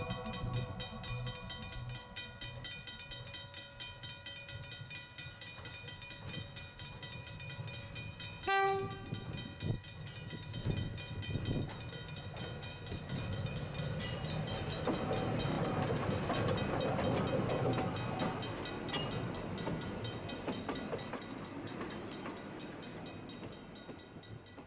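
English Electric Eo class electric locomotive sounding its horn, which dies away in the first couple of seconds, then giving one short blast about eight and a half seconds in. Then the running and wheel-on-rail noise of the train swells, loudest a little past the middle, and fades toward the end.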